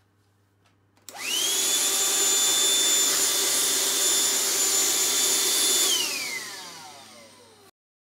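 Black+Decker 16.2Wh cordless Dustbuster handheld vacuum switched on about a second in, its motor whine rising quickly to a steady high pitch over a rush of air as it runs with the crevice nozzle extended, picking up crumbs. Switched off near the end, the whine falls and fades as the motor spins down.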